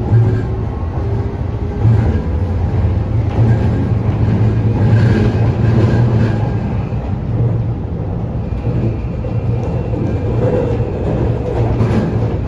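Toei 5500 series commuter train running, heard from inside the car: a steady low rumble of wheels on rail with faint whining tones from the Mitsubishi full-SiC VVVF inverter and its three-phase induction traction motors.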